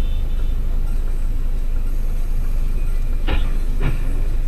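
Steady low rumble of a moving vehicle, with two short knocks a little over three seconds in, about half a second apart.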